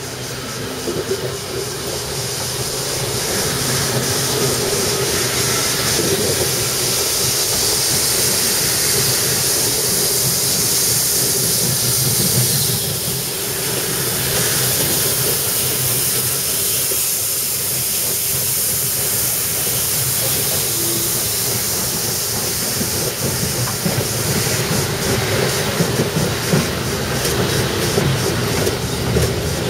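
Double-chimneyed MÁV class 424 steam locomotive starting away with a long train. A steady hiss of steam over a low rumble grows louder over the first few seconds as it draws close, then its coaches roll past.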